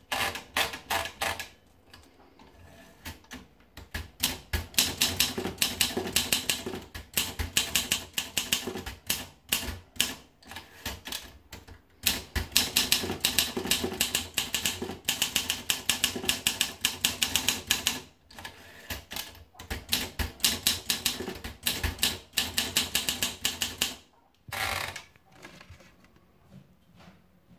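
Olympia SM2 manual portable typewriter being typed on: rapid runs of key strikes with short pauses between them. One longer stroke near the end, after which the typing stops.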